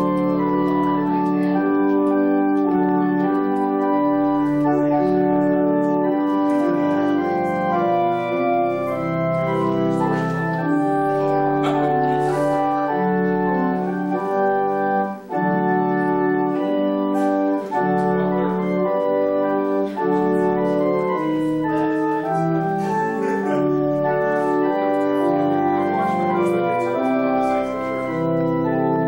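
Organ playing slow music in held chords that change every second or two, the notes sustained rather than dying away.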